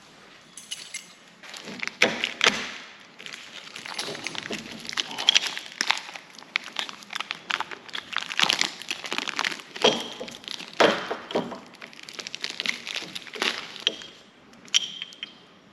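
Irregular clicks, light knocks and crinkling as new brake pads are unpacked from their box and plastic wrapping and handled.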